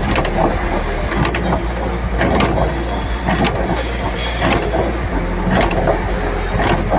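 Friction welding machine running: a steady low hum with irregular mechanical clicks and clanks.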